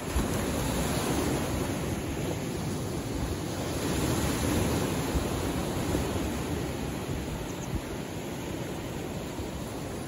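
Gentle Mediterranean surf washing in over shoreline rocks: a steady rushing wash that swells and eases with the waves, loudest a little before the middle.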